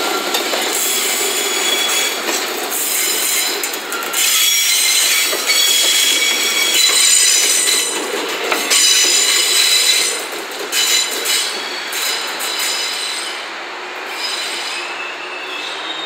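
Steel wheels of a slow freight train (a Koki 107 container flat wagon and an HD300 hybrid shunting locomotive) squealing against the rails as they pass close by: several high squealing tones at once, with a few sharp knocks. It is loudest in the middle and dies down over the last few seconds as the train moves away.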